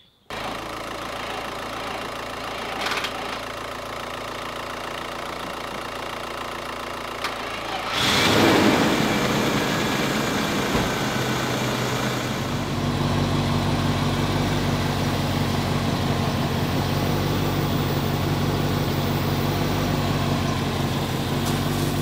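A car engine idles steadily. About eight seconds in, the flat-battery Land Rover Discovery is jump-started: its engine cranks and catches with a loud rough burst, then settles into a steady idle alongside the donor car's.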